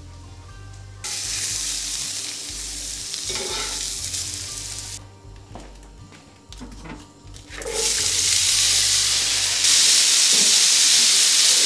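Food frying in a cast-iron skillet: a sizzle that breaks off briefly, then comes back louder about eight seconds in as diced potatoes and carrots are stirred in the hot pan. A low music bed runs under the first part.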